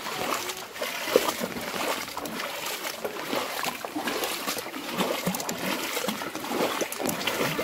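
Floodwater splashing and sloshing, a continuous run of small irregular splashes.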